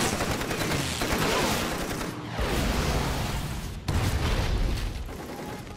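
Warplanes strafing at low level: rattling machine-gun fire and a plane's sound falling in pitch as it passes, then a heavy explosion about four seconds in.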